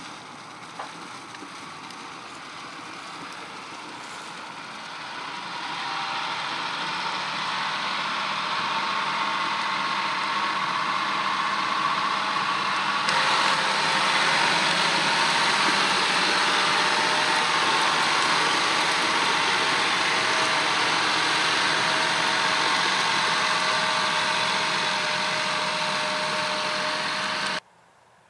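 John Deere 6R-series tractor running under load as it pulls a loaded slurry spreader, growing louder as it comes closer, with a steady mechanical whine over the engine. The sound cuts off abruptly near the end.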